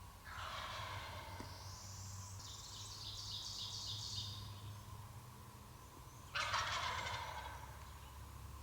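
Wild turkey gobbler gobbling twice: a rattling call right at the start and a louder one about six seconds in, with a run of higher, quick notes between them.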